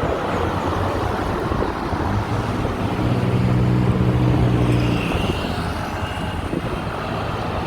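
Road traffic running by, with one motor vehicle's engine passing close and loud for a couple of seconds in the middle.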